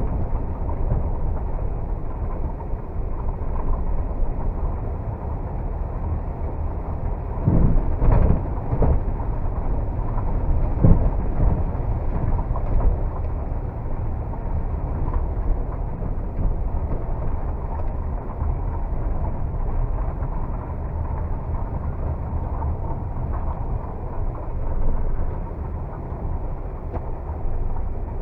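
Kia Carens II diesel minivan driving along a road, with a steady low rumble of engine and road noise. A few louder thumps come about 8 and 11 seconds in.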